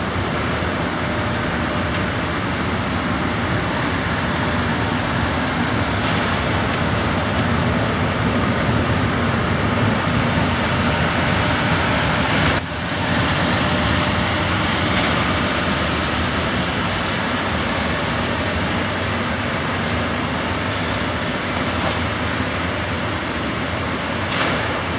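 Steady rumbling noise of a loaded hand-pulled utility cart rolling along a hog-barn walkway, with a few faint clicks and a brief dip in level about halfway through.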